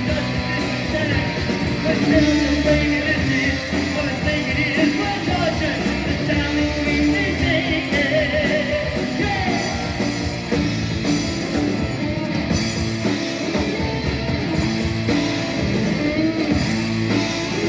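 Live rock band playing an instrumental break: drums, bass and keys under a wavering lead electric guitar line.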